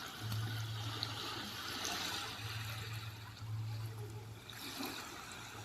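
Small waves washing and trickling on a beach, swelling and ebbing. A low steady hum comes and goes several times underneath.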